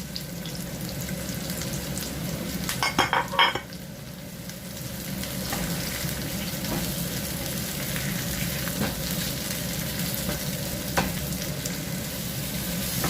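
Mushrooms sizzling as they fry in a hot pan with sautéed ginger, garlic and onion. There is a short clatter of stirring about three seconds in and a few light taps later.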